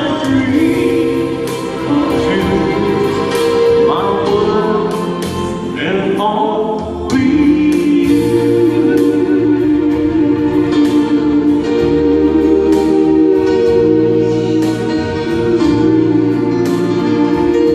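Live amplified music: a woman singing a slow song into a handheld microphone over keyboard accompaniment, with long held notes and a steady beat.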